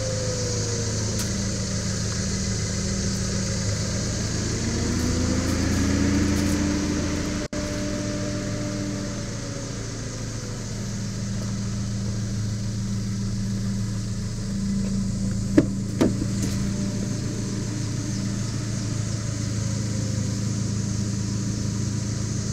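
A car engine idling steadily, with a faint tone rising and falling during the first ten seconds. Two sharp clicks in quick succession come about two-thirds of the way through.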